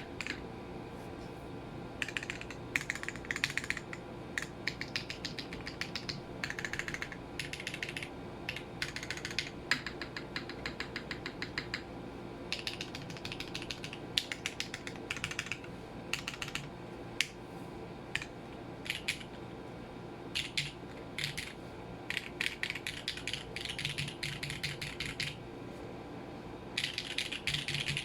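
Mode SixtyFive mechanical keyboard, polycarbonate case with lubed Gateron Vermilion Bird linear switches, being typed on: keystrokes clack in quick bursts with short pauses between, including one run of very even, rapid strokes. A steady air-conditioner hum runs underneath.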